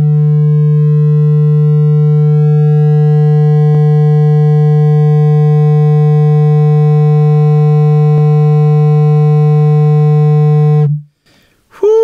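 Mini-subwoofer in a tiny 3D-printed ported enclosure playing a steady 150 Hz sine test tone, swelling to full level in the first half second as the gain is turned up, then holding with a buzzy overtone until it cuts off near the end. It is being driven at about 15 to 16 watts for a loudness measurement that reads about 138 dB.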